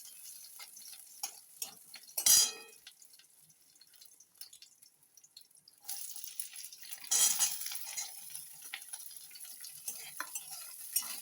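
Onion and capsicum going into hot oil in a kadai and being stir-fried. There is a loud knock about two seconds in, then sizzling with spoon scrapes from about six seconds in.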